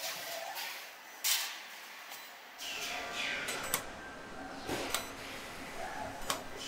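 Automated welding line machinery: short bursts of pneumatic air hiss, and sharp metallic clicks and clanks from the robots and clamping jigs, over a low machine rumble.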